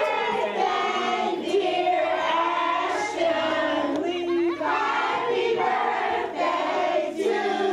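A group of voices, children among them, singing together in held notes.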